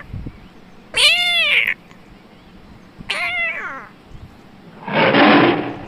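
Domestic cat meowing twice: the first meow about a second in rises then falls in pitch, and the second, about three seconds in, falls. A short breathy noise follows near the end.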